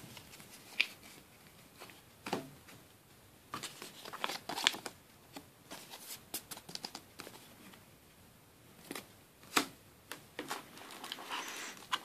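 Soft rustling and scattered light clicks of a Yu-Gi-Oh card being slid into a plastic card sleeve and handled. The rustling thickens near the end as a foil booster pack is pulled from the box.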